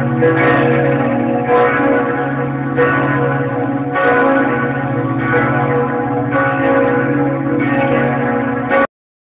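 Church tower bells ringing. Several ringing tones sound together, with a new strike about every second and a quarter. The ringing cuts off suddenly near the end.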